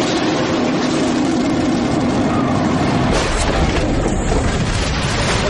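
Surface-to-air missile in flight, a loud steady rushing noise, giving way to a deeper rumble about three seconds in.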